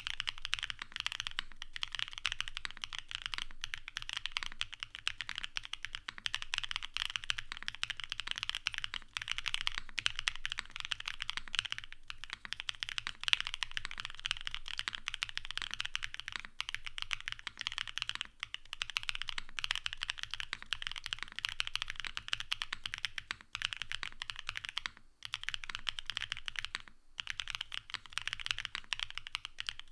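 Fast, continuous typing on a Space80 gasket-mounted mechanical keyboard with Vertex V1 switches and DMK Relic keycaps on a full FR4 plate, dampened by case foam, IXPE and plate foam. The keystrokes come densely, with two brief pauses near the end.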